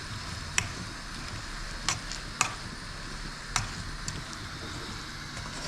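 Food sizzling steadily in a frying pan, with four sharp clicks or taps spread over the first few seconds.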